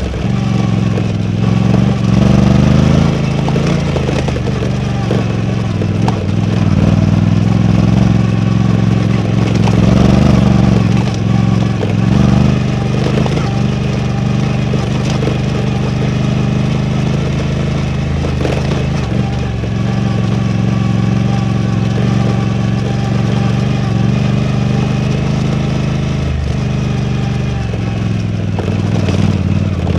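Suzuki V-Strom 800DE's parallel-twin engine running steadily while ridden, its revs rising and falling a few times.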